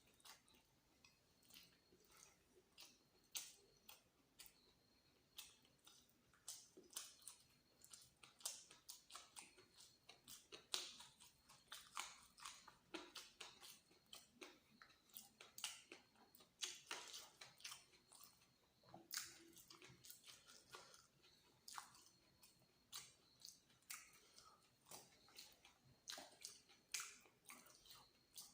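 Close-miked chewing and mouth sounds of a person eating luchi with egg masala: irregular clicks and smacks, a few a second, with short pauses between bites.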